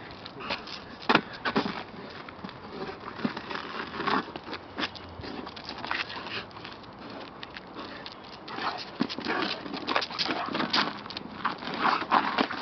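A Cane Corso tussling with a rubber car tyre on asphalt: the tyre scrapes and bumps along the ground amid irregular clicks and patters of the dog's feet.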